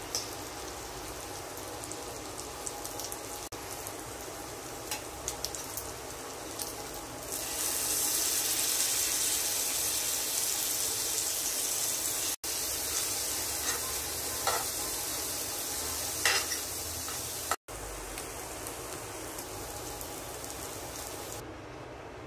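Marinated paneer pieces sizzling as they shallow-fry in oil in a pan, a steady hiss that grows louder about a third of the way in and eases near the end, with occasional clicks and scrapes of a spatula against the pan.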